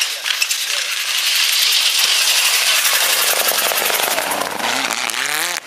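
Mitsubishi Lancer Evolution rally car passing at speed on a snow stage, with a loud rush of tyres and thrown snow. Its turbocharged four-cylinder engine revs up with a rising, rapidly pulsing note in the second half.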